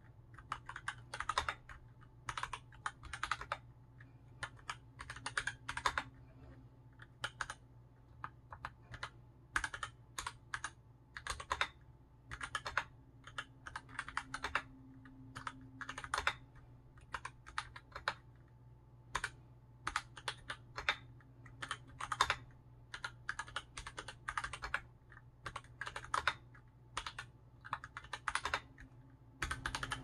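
Typing on a Keycool KC84 mechanical keyboard with lubed Gateron KS9 Black linear switches, a steel plate and an ABS case: quick runs of keystrokes broken by short pauses, over a faint steady low hum.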